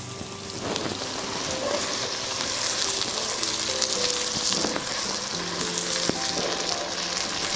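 Chopped shallots, garlic and sliced onion sizzling as they fry in hot oil in a pot, a dense crackling hiss that grows louder about a second in.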